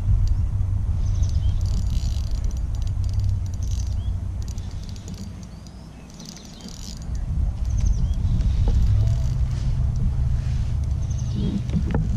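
Wind rumbling on the microphone, gusting and easing off for a couple of seconds midway, with small birds chirping now and then.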